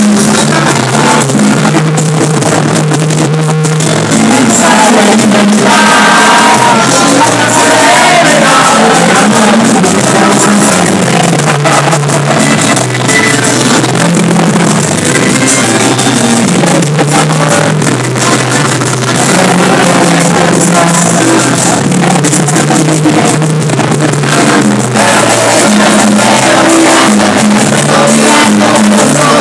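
A live band playing loudly, with a singer's voice over the music at times.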